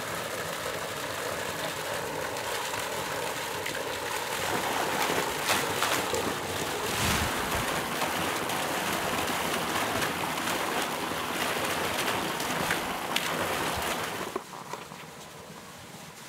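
Water gushing steadily from a pipe and splashing; from about four seconds in it gets louder and more splashy as a clay jug is held under the stream to fill it. The sound falls away near the end.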